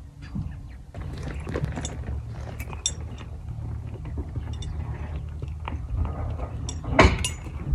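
A horse chewing right by the microphone, with scattered short clicks over a steady low rumble; a sharp knock about seven seconds in.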